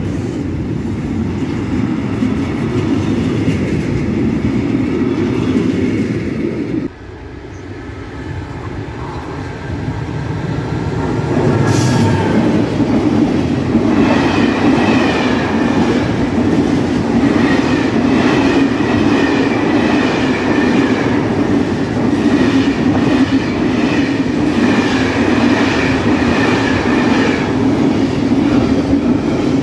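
Intermodal container freight wagons rolling past close by, a steady rumble and clatter of wheels on the rails. About seven seconds in the sound drops abruptly, then another container train builds up and runs past, with faint high squealing tones over the rolling for most of the rest.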